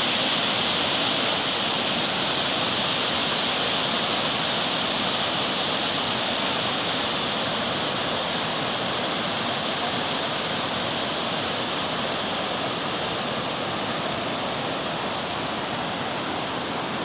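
Muddy floodwater rushing steadily through a swollen seasonal stream bed in a flash flood, a continuous churning wash of water that grows slightly fainter toward the end.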